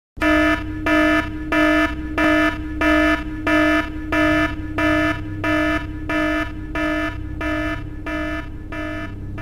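Alarm klaxon sounding in even pulses, about one and a half a second, a buzzy tone that fades slightly toward the end over a steady low rumble. It works as a launch-warning alarm.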